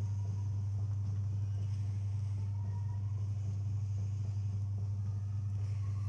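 Top-loading washing machine running its wash cycle, its motor giving a steady low hum as the clothes churn in soapy water.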